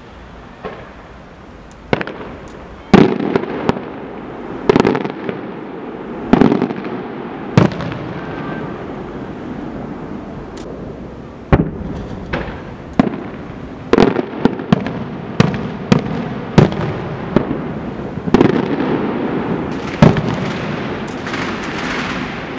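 Aerial fireworks bursting overhead: well over a dozen sharp, loud bangs at irregular intervals, each trailing off in an echo. The loudest comes about three seconds in, and a denser run of bangs begins at about fourteen seconds.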